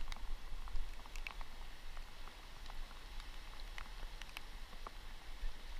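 Fast-flowing river water rushing past rocks, with wind rumbling on the microphone and scattered light ticks through it.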